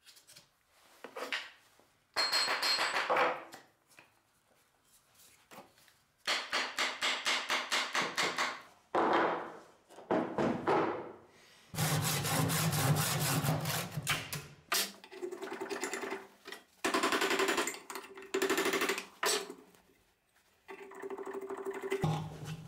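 Quick hammer blows on a steel axe head while it is hafted onto a plywood handle, coming in several short bursts, the head ringing with some of the strikes.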